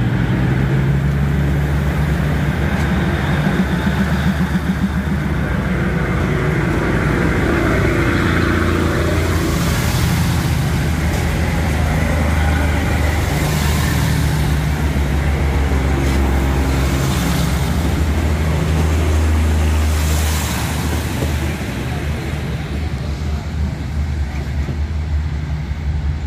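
Diesel railcar train pulling out of the station past the platform, its engines running under power with a steady low drone. A few brief clattering noises come from the wheels and running gear as the cars go by. The sound drops off after about twenty seconds as the last car passes.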